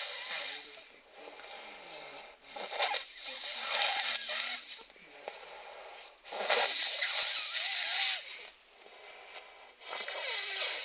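A person snoring heavily: loud rasping snores about two seconds long, roughly every three and a half seconds, with quieter breathing between them.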